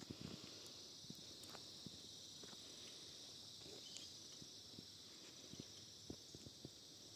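Near silence: a faint, steady high chirring of insects in the background, with soft, irregular footsteps.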